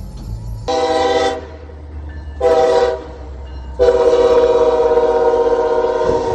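Freight locomotive's multi-tone air horn sounding two short blasts and then one long held blast, a warning to a tractor-trailer stuck on the grade crossing ahead.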